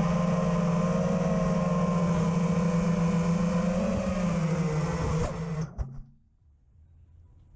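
FPV racing quadcopter's motors humming steadily with a slight dip in pitch about four seconds in, then a couple of knocks and the hum cuts off about six seconds in.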